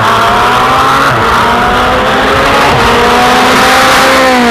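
Ferrari 488 GTB's twin-turbo V8 with a Capristo sports exhaust, accelerating hard toward the listener and passing by. The engine note climbs steadily, with one upshift about a second in, then drops in pitch as the car goes past near the end.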